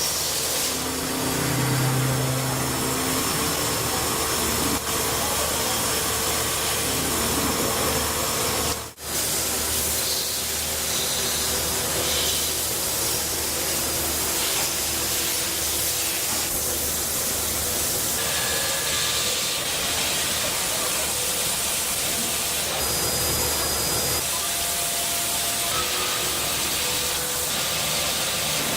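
CNC machine shop noise: a steady hiss with faint, shifting machine tones, briefly dropping out about nine seconds in.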